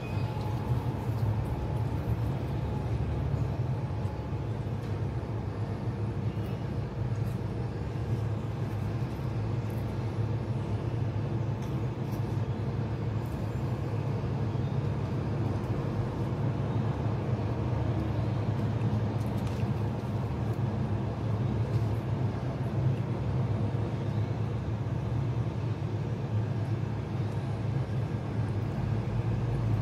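A steady low rumble with a faint hum running under it, with no change in level, and a few faint light clicks.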